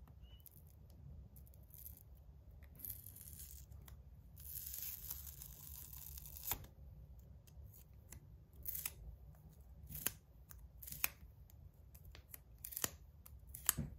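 Adhesive tape being peeled off a metal slider fidget: a longer hissing peel a few seconds in, then several short sharp rips toward the end, all fairly quiet.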